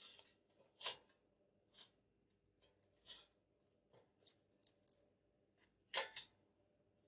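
Chicken pieces being turned over in an air fryer basket with a kitchen utensil: faint, short scrapes and clicks, about seven of them, spaced irregularly.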